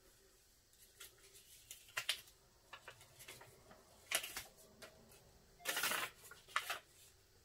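Folded paper smartwatch user guide being unfolded by hand, crinkling and rustling in short scattered bursts, the loudest and longest about six seconds in.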